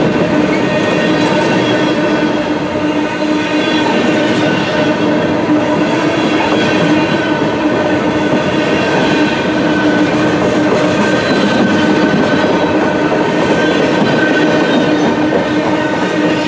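Empty centerbeam flatcars of a long freight train rolling past at close range: a loud, steady noise of wheels on rail, with a sustained ringing tone running over it.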